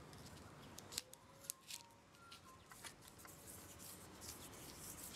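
Faint crackling and rustling of self-adhesive vinyl film being pressed and smoothed down by hand, with a few short sharp ticks in the first half.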